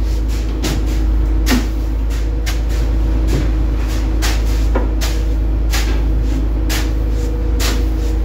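Plastic shovel chopping into packed ice to break up the chunks: sharp crunching strikes, about one or two a second, over a steady low rumble.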